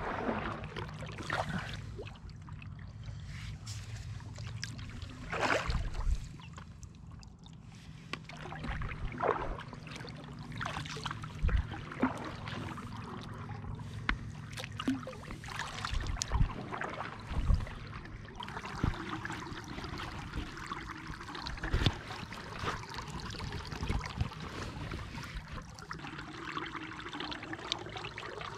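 Kayak paddling on calm water: a double-bladed paddle dipping and pulling through the water at irregular strokes, with water trickling and dripping off the blades between strokes.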